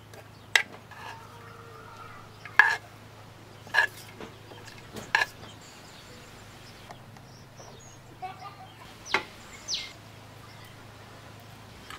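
A few short, sharp clicks and knocks, spaced a second or more apart, over a low steady hum.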